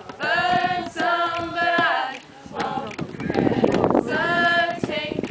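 A group of voices singing together unaccompanied, two held sung phrases with a short break between them.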